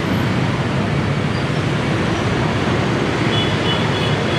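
Steady wash of street traffic noise from motorbikes and cars, with a faint, broken high beeping near the end.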